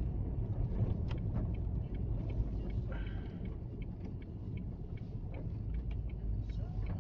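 Vehicle engine and road noise picked up inside the cab by the dashcam: a steady low rumble with scattered small clicks and knocks and a brief high tone about three seconds in, easing slightly as the vehicle slows.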